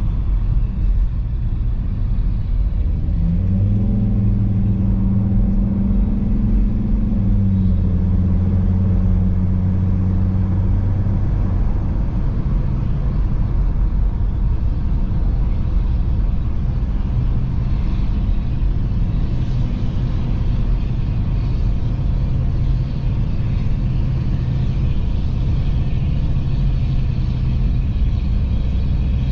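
Car being driven: a steady low rumble of road and engine noise, with the engine note rising about three seconds in and changing pitch again a few seconds later.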